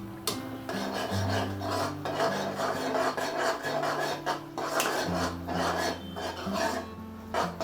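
A metal spatula scraping and stirring sauce in a cooking pan, in a run of rasping strokes each under half a second long.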